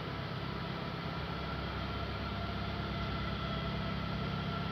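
Steady hum of an approaching electric train, with a faint high whine that grows slightly stronger as it nears.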